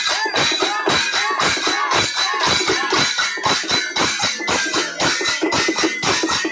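Folk music of bamboo flutes (pillanagrovi) playing a wavering melody over drums beaten with sticks in a fast, steady rhythm.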